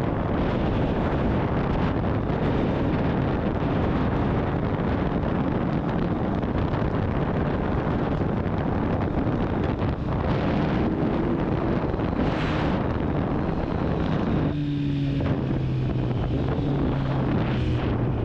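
Wind rushing over the microphone on a moving motorcycle, a steady noise that covers most of the sound. About fourteen seconds in the wind eases and the Kawasaki Z900's inline-four engine comes through with a steady note.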